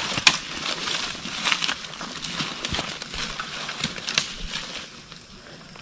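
Footsteps crunching through dry leaf litter and brush, with irregular crackles and snaps of leaves and twigs underfoot, growing quieter near the end.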